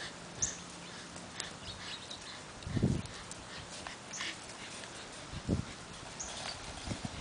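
Eight-week-old Finnish Lapphund puppies making faint, short high squeaks and whimpers as they play. Two dull thumps, about three and five and a half seconds in, are the loudest sounds.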